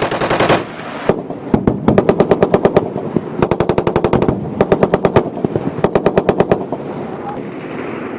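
M2 .50-calibre heavy machine gun firing in short bursts, roughly eight to ten rounds a second: a burst at the start, a lone shot about a second in, then four more bursts. The reports echo away near the end.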